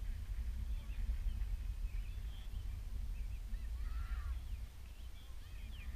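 Wind buffeting the microphone in an open field, a steady low rumble, with faint short high calls from a distance now and then.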